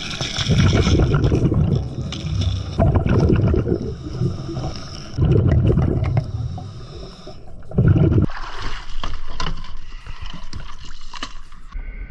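Scuba diver breathing through a regulator underwater: four bubbly, rumbling exhalations a couple of seconds apart, with hissing inhalations between them.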